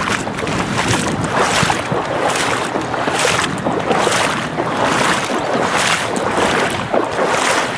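Boots wading through a shallow stony stream, splashing in a steady stride, with the stream rushing underneath.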